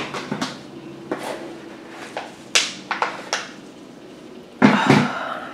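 Dried oregano flower heads and stems crackling and rustling as they are handled and rubbed between the fingers to free the seeds, in scattered sharp crackles. A louder rustle with a low bump comes near the end.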